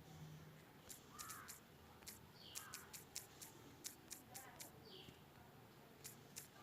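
Near silence: faint background noise with scattered soft clicks and a few faint, short, high falling chirps about two seconds apart.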